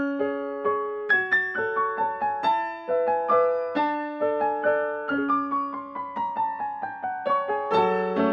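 Background piano music: a gentle melody of single struck notes, about two a second, stepping downward in the middle, with lower notes joining near the end.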